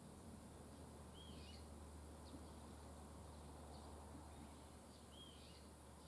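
Faint small birds calling: the same short curling chirp twice, about four seconds apart, with a few fainter short chirps between, over a steady low hum.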